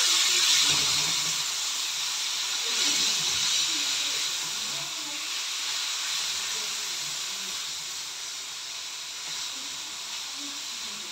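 Chopped tomatoes and onions sizzling in hot oil in an aluminium pan as they are stirred. The sizzle is loudest at first and slowly dies down as the tomatoes cool the oil.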